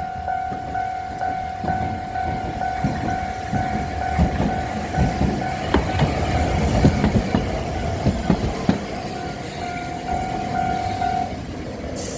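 Japanese level crossing's electronic warning bell sounding its repeated "kan-kan" tone, which stops about eleven seconds in. Midway a tram rumbles and clacks across the crossing.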